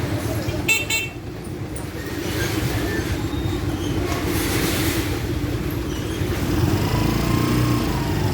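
Motorcycle engine running steadily while riding, with a short horn toot just under a second in; the engine grows somewhat louder near the end.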